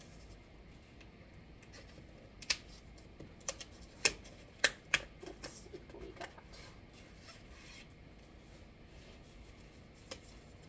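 Cardboard advent calendar door being opened and its contents handled: soft paper and cardboard rustling with several sharp crackles and snaps, most of them between about two and five seconds in.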